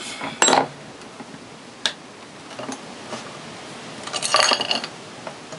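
Metal knocks and clinks as a Sturmey-Archer three-speed hub is handled and set into a steel bench vise: a loud knock about half a second in, a single sharp click near two seconds, and a short burst of ringing metallic clatter a little past four seconds.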